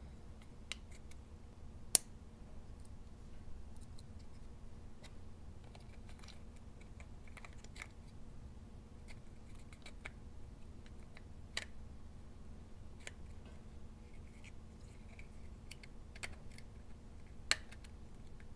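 Small clicks and taps of an HO scale model locomotive shell being handled and pressed onto its chassis, scattered and faint, with sharper clicks about two seconds in and near the end.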